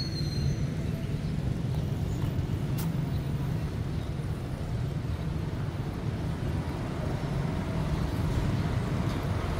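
Steady low rumble of a motor vehicle's engine and road noise, with a faint high squeal dying away at the start and a single sharp click a little under three seconds in.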